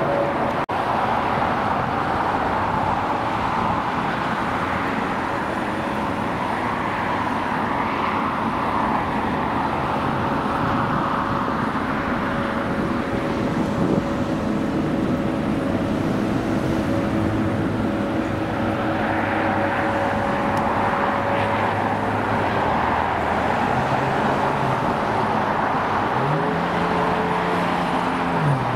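Steady roar of jet airliner engines with a faint steady whine. A road vehicle's engine rises and falls in pitch near the end.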